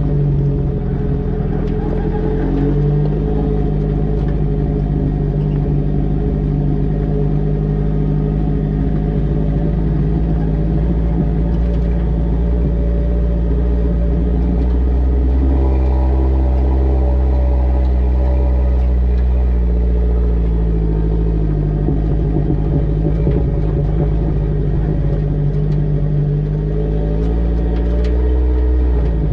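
Vehicle engine running steadily as it drives a rough track, picked up close by a camera on the rear bumper. The engine's pitch shifts several times, dropping about halfway through and rising again later.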